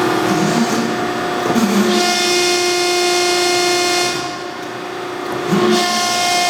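Clearing Niagara 175-ton hydraulic press brake's hydraulic pump running with a steady whine as the ram cycles. The whine grows louder and harsher for a couple of seconds, eases off, then swells again near the end, with brief low clunks as it changes.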